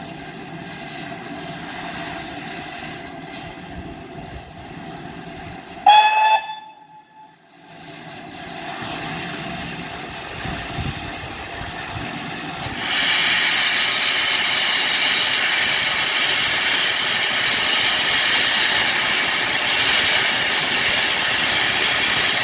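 Steam locomotive No. 6989 Wightwick Hall, a GWR Modified Hall 4-6-0, gives one short whistle blast about six seconds in over a faint steady hiss. From about thirteen seconds in, its open cylinder drain cocks blow off steam with a loud steady hiss as it starts away.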